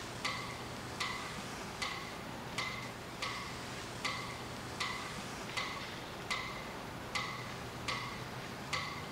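Slow, even ticking: a short, slightly ringing click about every three-quarters of a second, like a clock or metronome, over a faint steady hum.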